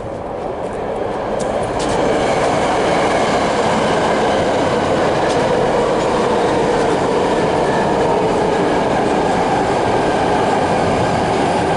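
A loud, steady rumbling noise that builds over the first two seconds and then holds.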